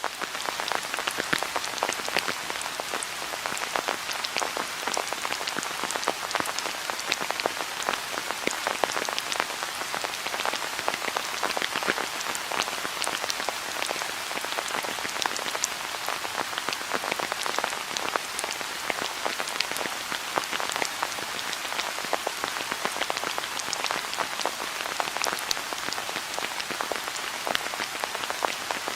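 Steady rain falling, with many individual raindrops pattering sharply on a hard surface.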